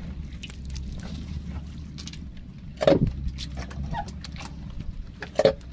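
Longline being hauled by hand into a wooden boat: scattered light clicks and clatter from line and hooks, with two louder knocks about three and five and a half seconds in, over a steady low hum.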